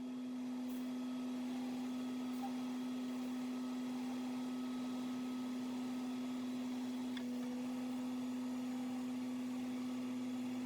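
Background music: one low note held steadily as a drone, with faint higher tones above it.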